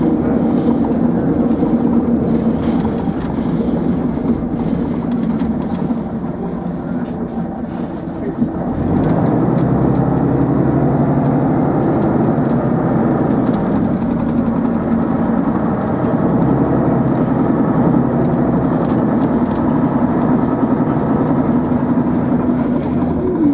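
Metro-Scania bus's engine and drivetrain running under way, heard from inside the passenger saloon. The engine note grows louder and deeper about nine seconds in, then holds steady.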